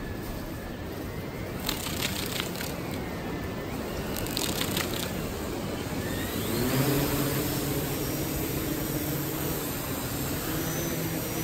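Gannet Pro waterproof quadcopter drone spinning its motors up about two-thirds of the way in and lifting off from the water, then hovering with a steady buzzing hum. Before it starts, there is only a steady wash of background noise.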